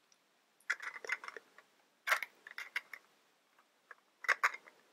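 Hard plastic Mega Bloks building-block sections clicking and clacking against each other as two halves are fitted and pressed together, in three short bursts of clicks.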